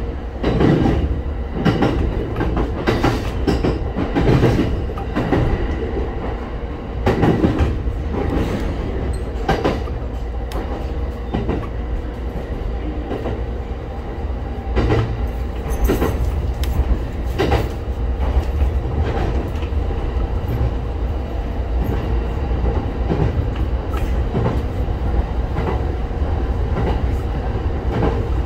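Local electric train running along the line, heard from inside the front car: a steady rumble of wheels on rail, with irregular clacks as the wheels cross rail joints and a faint steady tone underneath.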